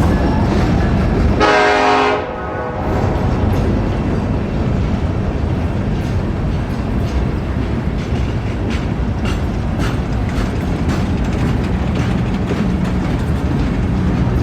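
Train horn sounding one blast of about a second, shortly after the start. Then comes the steady rumble of the passing train with scattered sharp knocking clicks, a sound the filmer guesses comes from the wheels on the track.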